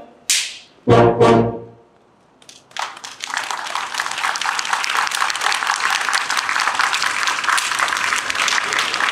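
Wind orchestra ending a piece: the held chord cuts off and two short final hits follow, the second with bass drum, ringing out about a second in. After a brief pause, audience applause starts about three seconds in and carries on.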